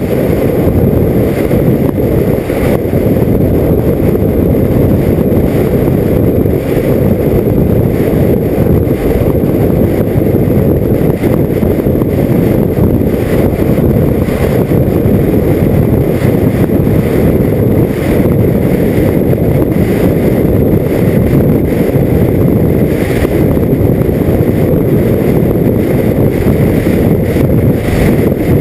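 Steady wind noise on the microphone of a camera mounted on a KTM motorcycle moving at road speed, mixed with the motorcycle's riding noise. It holds level throughout, with no change.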